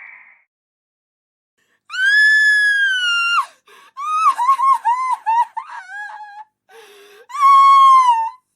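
Horror sound effect of high-pitched human screaming: a long scream about two seconds in, then a run of short broken cries, then a second long scream that drops slightly in pitch near the end.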